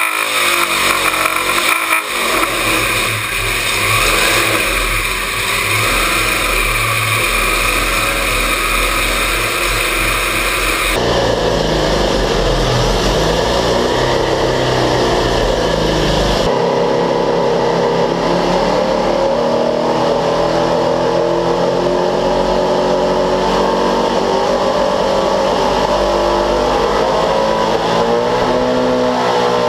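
Twelve-rotor Wankel rotary engine running on an engine dyno in a low-power test, held to about 2000 rpm because its carburettor cannot flow enough fuel for more. The engine note changes abruptly twice, and its speed swells and eases near the end.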